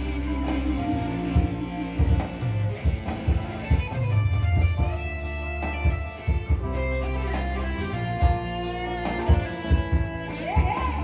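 Band music with electric guitar and a drum kit, played back through Yamaha DBR and DSR powered PA loudspeakers for a sound test.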